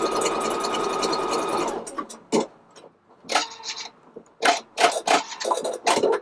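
Embroidery machine stitching, a fast even run of needle ticks, stopping about two seconds in; then scattered short clicks and knocks.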